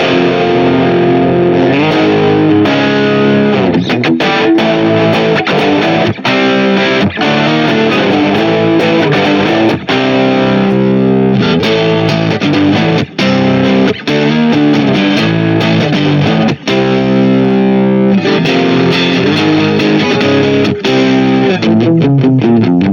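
Smiger LG2 Pro HF Super Strat electric guitar played through a distorted amp or effects sound: a continuous run of riffs and single-note lines with a few short stops between phrases.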